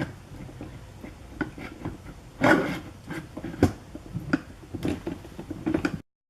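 Parts of a ride-on toy car being handled and fitted while the steering column goes on: irregular clicks, knocks and rubbing, with a louder scrape about two and a half seconds in, stopping abruptly near the end.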